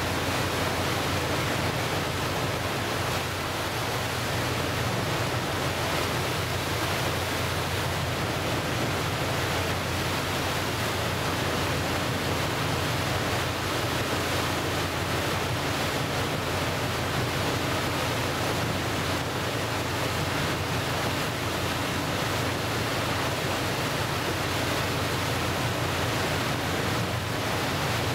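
Steady rushing of wind and choppy waves on open water, an even wash of noise that holds at one level.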